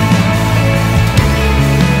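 Background music with a heavy rock sound: dense sustained bass and guitar-like chords with a regular drum beat.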